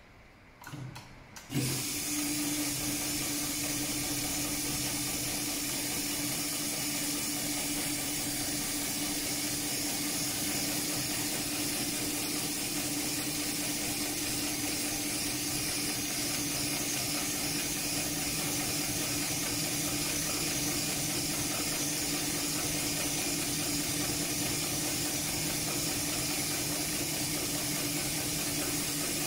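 HighTex 71008R heavy-duty programmable bar-tacking machine stitching two ropes together: a few clicks as the ropes are clamped, then about a second and a half in the machine starts and runs with a steady hum and hiss.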